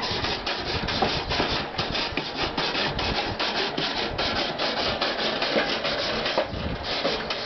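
A broken wooden drumstick scraped rapidly back and forth across the metal grate of a gas grill, about four or five rasping strokes a second.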